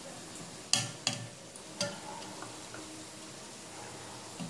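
Stainless-steel slotted spoon clinking against a steel bowl and plate as syrup-soaked imartis are lifted out and set down: a few sharp metal clicks, the loudest a little under a second in, over a steady faint hiss.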